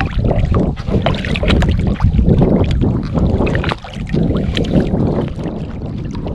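Wind rumbling on the microphone of a sea kayak at sea, with water around the hull. Scattered small clicks and knocks of gear being handled run through it.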